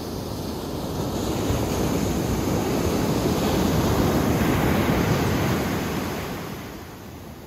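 Ocean surf: a wave breaks and washes up the beach. The rush builds over a few seconds and fades away near the end.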